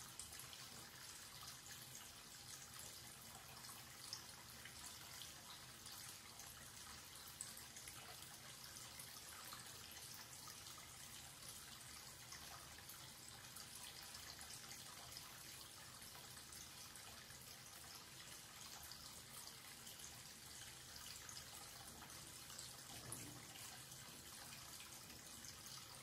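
Thin stream of tap water running from a wall-mounted faucet into a white washbasin and down the open drain: a faint, steady trickling splash with a few sharper drips.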